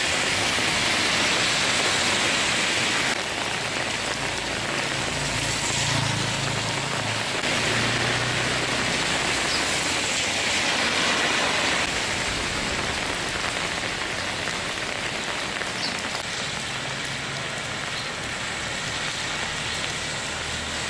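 Heavy rain falling in a dense, steady hiss during a summer thunderstorm, with a faint low hum at times.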